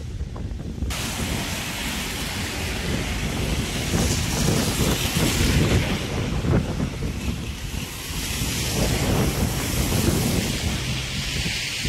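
Wind buffeting the phone microphone over the steady hiss of a rain-soaked street, with the hiss coming in about a second in.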